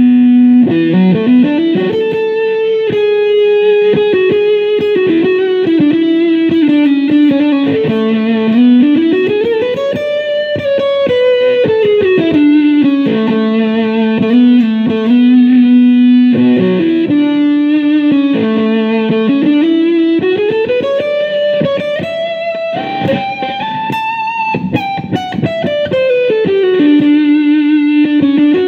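HSS Strat-style electric guitar played through overdrive: a single-note lead of sustained notes that glide smoothly up and down in pitch in several slow swoops, between runs of quicker picked notes.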